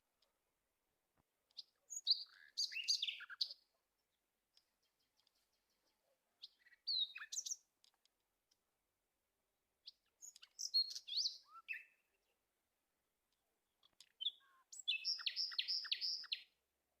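Birds chirping in short high-pitched bursts separated by quiet, ending in a quick run of about five notes.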